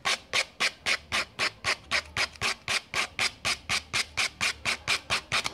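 Sandpaper rubbed rapidly back and forth along the edge of an MDF tray, about six or seven scraping strokes a second, wearing through the satin fabric glued over the edge so that it comes away.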